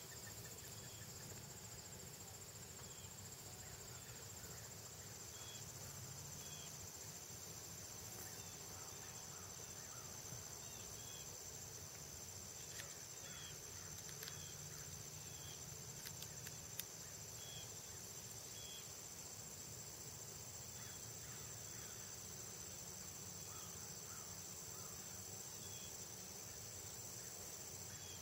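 Faint, steady, high-pitched trill of insects, with a softer short chirp repeating about once a second.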